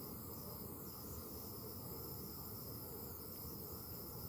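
USB ultrasonic humidifier running: a faint steady hiss with soft, high-pitched chirps recurring irregularly.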